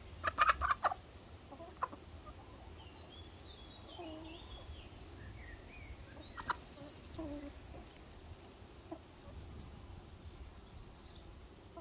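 Laying hens clucking: a quick run of short clucks in the first second, then scattered low clucks a few seconds apart, with thin high chirps in between.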